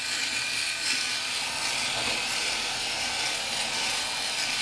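SURKER KS-9390 rotary electric shaver running steadily while pressed to the face. Its heads cut a day or two of stubble smoothly, without pulling the hair, making an even, mostly high-pitched noise.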